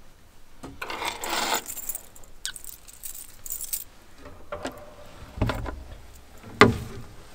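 Rosary beads clinking and jangling in a hand in two short stretches, then a dull thump and, near the end, one sharp knock, the loudest sound.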